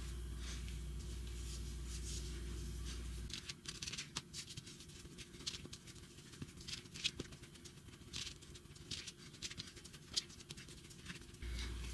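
Hands folding and pressing soft biscuit dough on a floured plastic mat: irregular soft pats and scratchy rustles. A low steady hum underneath stops about three seconds in.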